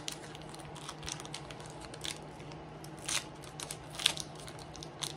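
Foil Pokémon trading-card booster pack wrapper crinkling and being torn open by hand, in irregular short crackly bursts, the loudest about three and four seconds in.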